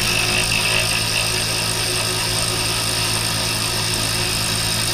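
Cordless ratchet running steadily, spinning a 13 mm bumper mounting bolt out.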